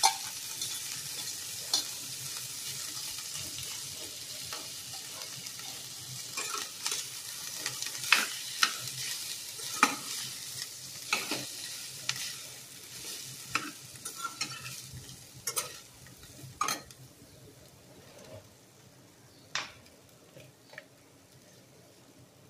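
Boiled rice frying in oil in a kadai while a metal slotted spatula stirs and tosses it, clicking and scraping against the pan at irregular intervals. The sizzle fades in the second half.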